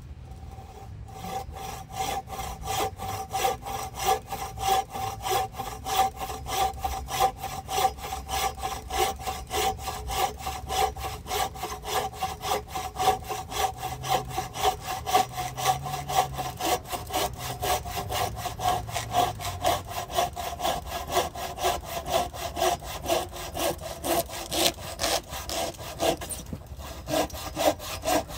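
Bow saw with a freshly tightened blade cutting through a small log of dry wood in quick, even push-pull strokes, with a steady high note running under the strokes. The sawing starts about a second in and breaks off briefly near the end.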